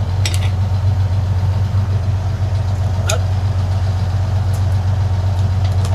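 Fishing boat's engine running steadily, a loud, even low drone, with a faint click or two.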